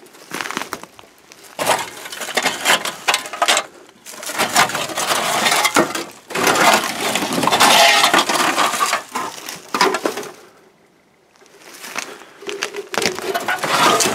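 Digging through a pile of rusted sheet-metal car body panels and leaf litter: irregular scraping, clanking and crunching of metal and debris, with a short pause about three quarters of the way through.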